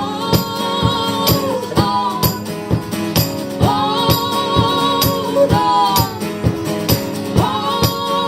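Live band music: voices holding long sung notes, rising into each one, over a steady percussive beat and instruments.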